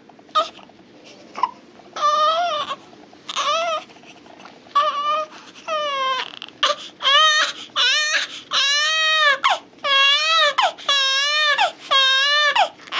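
Infant crying: short fussy cries at first that build into long wails, each rising and falling in pitch, about one a second.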